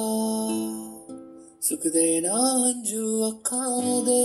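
A song with singing over plucked strings playing through a Xiaomi portable Bluetooth speaker (Youth Version metal mini speaker), dipping almost to silence for a moment about a second and a half in before the music resumes.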